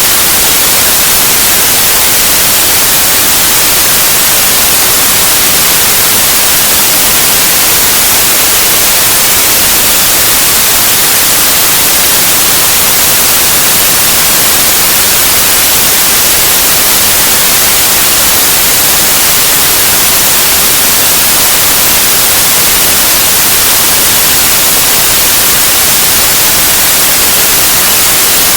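Synthetic white noise: a loud, steady, unchanging hiss.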